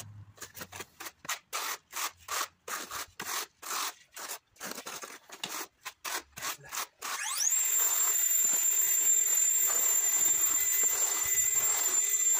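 Steel notched trowel scraping cement tile adhesive in quick repeated strokes. About seven seconds in, an electric power tool starts, whining up in pitch and then running steadily, louder than the trowel, with the scraping still heard under it.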